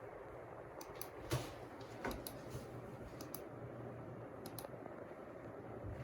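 Typing on a computer keyboard: scattered key clicks, with a louder knock about a second in, over a steady low hiss.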